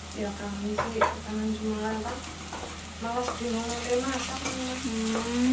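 A woman talking, in two stretches, over a steady sizzle of food frying in a pan.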